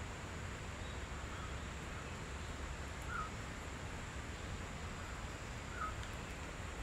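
Steady outdoor background hiss and low rumble, with two short distant bird calls, one about three seconds in and another near six seconds.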